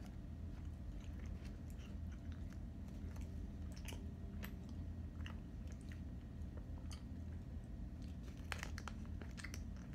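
A person chewing a bite of a Milky Way bar (soft chocolate, nougat and caramel): faint, scattered mouth clicks over a low steady hum.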